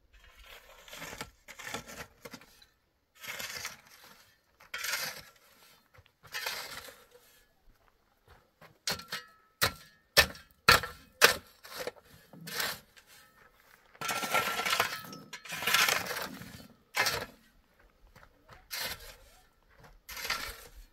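Long-handled shovel scraping and scooping stony soil in repeated strokes. A run of sharp clinks of the blade on stone comes around the middle, and the longest scrapes come soon after.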